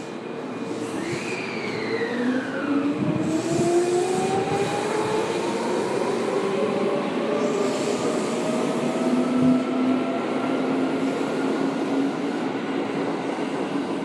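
Tokyo Metro 10000 series electric train accelerating: its motor whine climbs steadily in pitch, with a short falling whistle about a second in, over the steady rumble of the wheels on the rails.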